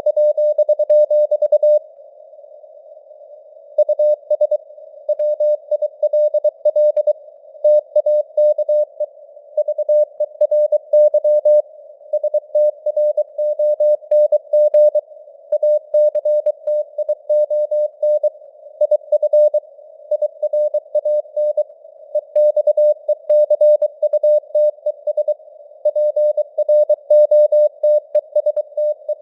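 Morse code news headlines sent at 23 words per minute as one mid-pitched beeping tone, keyed on and off in dots and dashes. A narrow band of radio-like hiss sits around the tone, and the signal strength drifts up and down with simulated fading (QSB). The keying pauses for about two seconds near the start, then carries on.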